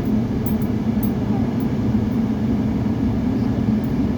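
A moving vehicle with its engine and road noise making a steady low rumble.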